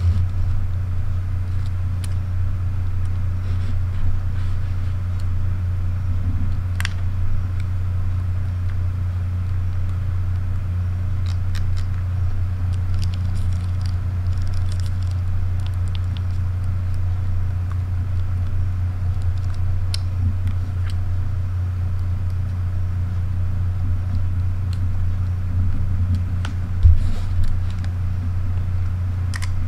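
A steady low hum, with faint scattered clicks of camera buttons and dials being pressed and turned, and one low thump near the end as a camera is handled.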